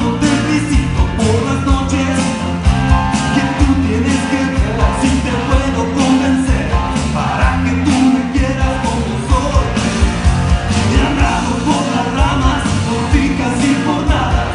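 Loud music with a singing voice over a steady beat and a moving bass line.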